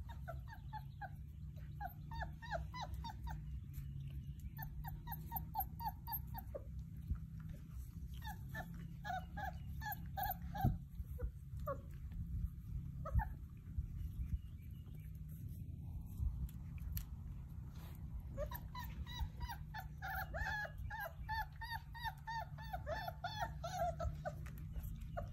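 Basset hound puppies whimpering and yipping in quick runs of short, high, falling cries, one after another. The runs come in several bouts, with the longest near the end, over a steady low rumble.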